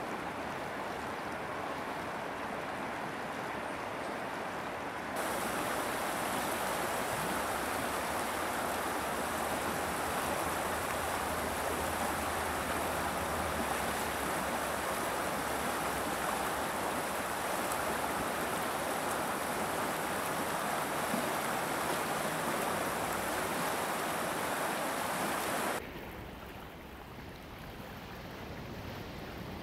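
Shallow river water rushing steadily over cobbles in a riffle. It gets louder about five seconds in, then near the end drops suddenly to a much quieter, softer hiss.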